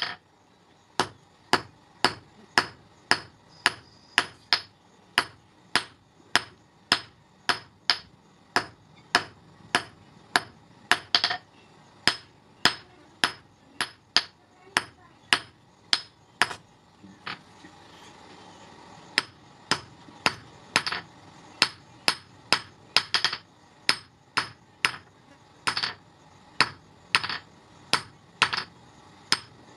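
Hammer striking a steel knife blank held in tongs on an anvil, about two blows a second, each with a short metallic ring. The blows stop for about two seconds a little past halfway, then resume at the same pace.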